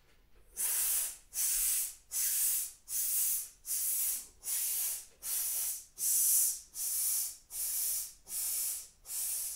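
A man's stepped yogic exhalation: a string of about a dozen short hissed 's' sounds pushed out through the teeth, about two a second. The breath is let out in steps against the resistance of the 's'.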